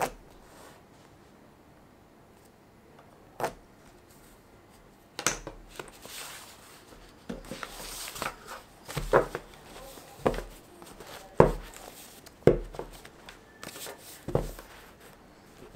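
A stack of folded paper signatures being handled on a wooden table: sliding, rustling paper and a series of sharp, irregular knocks as the stack is set down and tapped against the tabletop, roughly one a second from about five seconds in.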